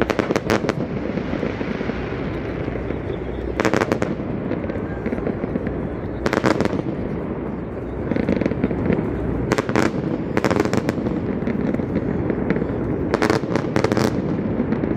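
Fireworks bursting in about six crackling clusters a few seconds apart, over steady crowd noise.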